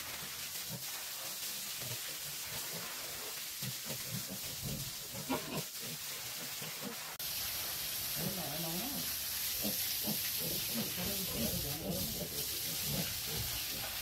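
Water spraying from a garden hose onto a concrete pen floor, trough and a sow: a steady hiss that gets louder about seven seconds in.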